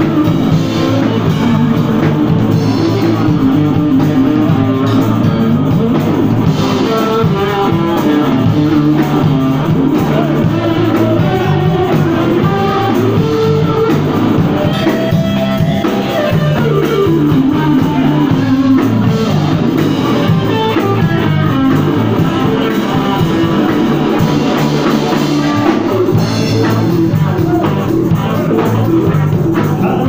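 A live rock band playing: electric guitar over a drum kit, loud and steady.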